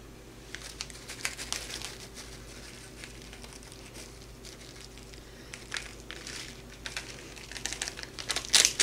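Hershey's candy bar wrapper crinkling as chopped chocolate pieces are shaken out of it. The crinkles come scattered and faint at first, then grow louder and denser near the end.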